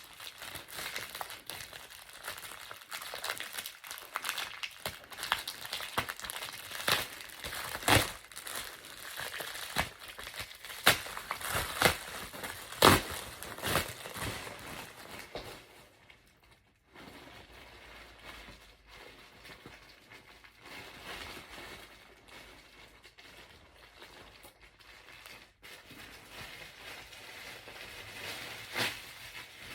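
Shipping package being opened by hand: its wrapping crinkles and crackles, with sharp snaps and rips. The handling is busy through the first half and turns quieter and sparser after about fifteen seconds.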